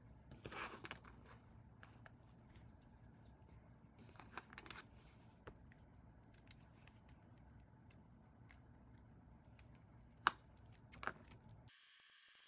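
Scattered light clicks and snips of hand work on a small plastic toy robot, with a few louder sharp clicks and a rustle or two.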